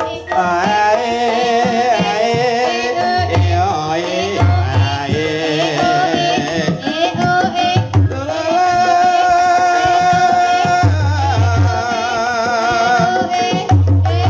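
Javanese gamelan playing dance accompaniment: singing with a wavering melody over metal gamelan instruments, with deep kendang drum strokes landing every few seconds.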